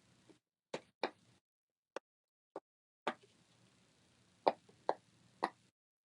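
Small handheld fidget toy being worked by hand: about eight short, sharp clicks at uneven intervals, some softer, three louder ones in the second half.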